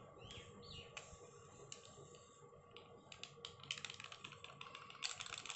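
Plastic Eno fruit salt sachet crinkling as it is handled and squeezed to empty the powder into the milk: a few scattered faint clicks at first, then rapid crackling that grows denser and louder toward the end.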